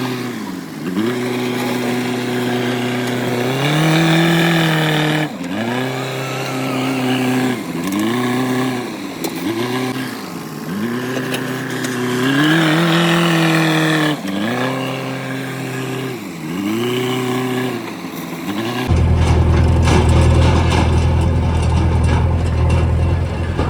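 An engine is revved down and up again and again, about ten swoops in pitch, roughly one every two seconds. About three quarters of the way through it cuts suddenly to the steady, deep rumble of a heavy diesel engine running.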